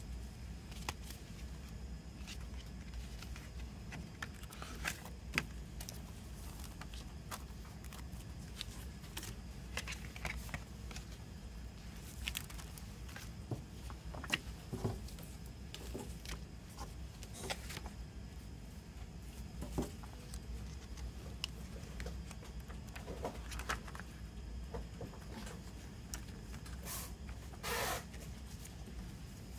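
Handling of a cardboard CD sleeve and paper inserts: scattered light taps, clicks and rustles, with a longer paper rustle near the end. A steady low hum sits under it throughout.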